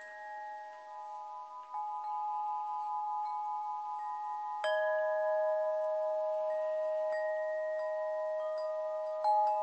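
Metal chimes struck every couple of seconds, each note ringing on for several seconds so that the pure tones overlap into a sustained chord. The strongest strike comes about halfway through.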